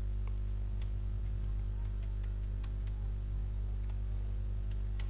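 Computer keyboard keystrokes, irregular single clicks as a bank name is typed into a form field, over a steady low electrical hum.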